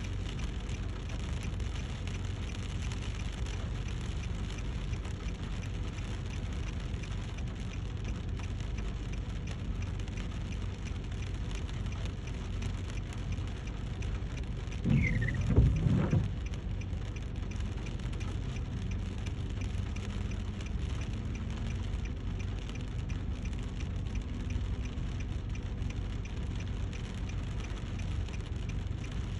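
Rain falling steadily over a low, even rumble. About halfway through, a brief louder sound with a short falling squeal rises above it.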